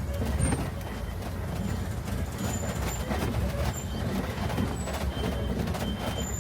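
Open-sided safari ride truck driving along a rough track: a steady low engine and road rumble with frequent knocks and rattles from the bumpy ride.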